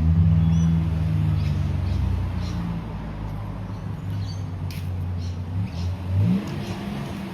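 A vehicle engine running, fading after about two seconds, then rising in pitch as it revs about six seconds in. Birds chirp throughout.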